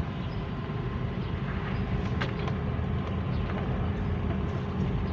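Chevrolet Trailblazer driving on a test run, its engine and road noise holding steady. The engine keeps running without stalling after the no-crank, no-start repair.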